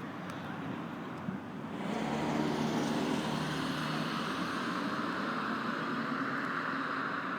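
A road vehicle's engine running nearby, growing louder about two seconds in and then holding steady.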